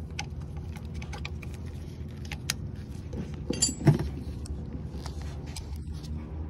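Small clicks and clinks of gloved hands working retaining clips to free a brake hose and wire from their brackets behind a car's rear wheel, with a louder knock about four seconds in. A steady low hum runs underneath.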